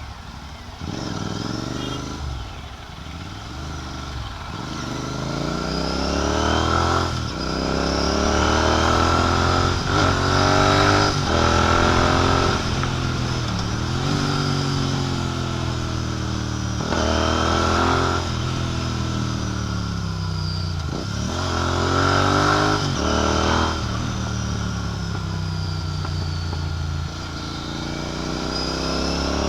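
Royal Enfield Continental GT 650's 648 cc parallel-twin engine through a Red Rooster aftermarket exhaust, accelerating on the road: its pitch climbs and drops back at each gear change, over and over. A thin steady whistle sits above the engine note, which the rider likens to a turbocharger.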